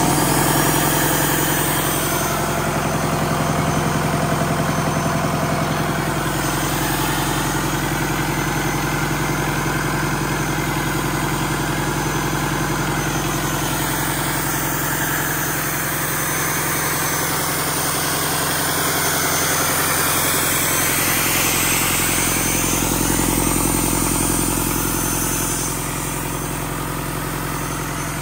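Freshly rebuilt Doosan D34P four-cylinder turbo-diesel engine idling steadily on a test run.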